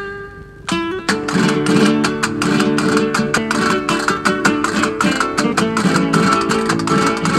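Intro music: acoustic guitar in a Spanish style, one note ringing out, then from about a second in a fast run of plucked notes and strums.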